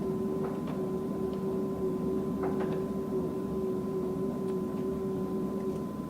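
TOS SUS 80 engine lathe running at a steady spindle speed: a constant mechanical hum with a steady tone and a few faint ticks.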